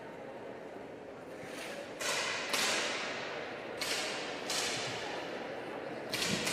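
10 m air pistols firing: about six sharp shots from several shooters at uneven intervals, each trailing off in the hall's echo.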